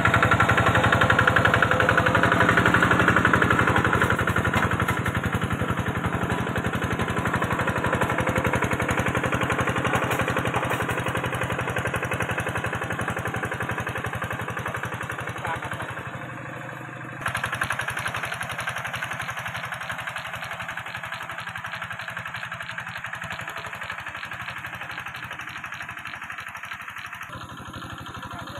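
Small engine of a farm machine working a muddy rice paddy, running steadily with a fast, even firing beat. It dips and then cuts back in abruptly about 17 seconds in, and slowly grows fainter toward the end.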